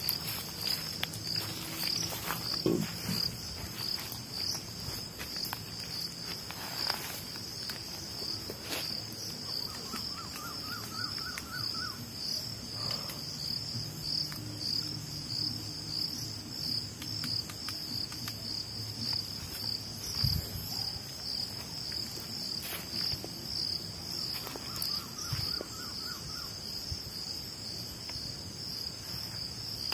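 Night insect chorus: a steady, pulsing high trill throughout. Twice, a short run of quick repeated notes from another small animal rises above it.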